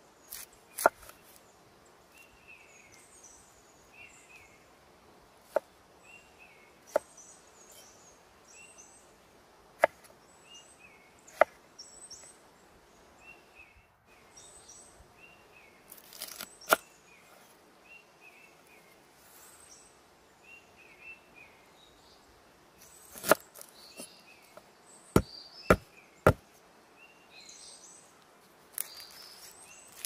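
A curved steel cleaver striking a wooden cutting board as onion and garlic are cut: single sharp knocks every few seconds, with a quick run of three near the end. A songbird chirps repeatedly in the background.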